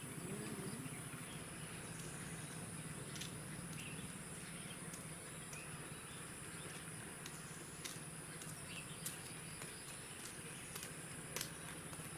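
Outdoor ambience dominated by a steady high-pitched insect drone, over a low steady hum, with a few faint sharp clicks scattered through.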